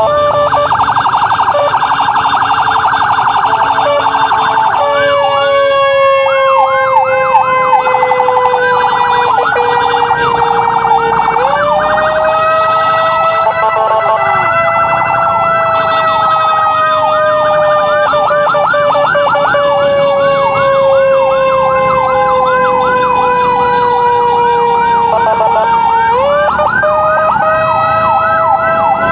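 Electronic emergency sirens of an ambulance escort, at least two sounding together: a wail that jumps up and falls slowly, restarting twice, under a fast repeating yelp. About five seconds in the pattern changes from a pulsing two-tone. Motorcycle engine and traffic noise run underneath.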